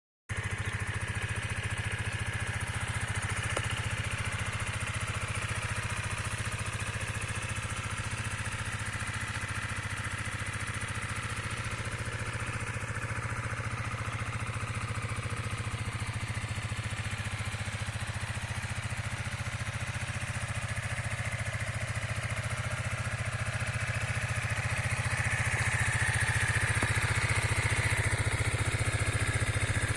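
Keeway K-Light 125's air-cooled single-cylinder engine idling steadily through its exhaust, a little louder in the last few seconds.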